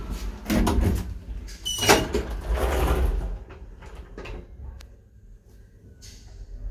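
Elevator doors closing: a bump, then a sharp metallic clack with a brief squeal about two seconds in and a rush of sliding noise. It all settles to a low background hum after about three seconds.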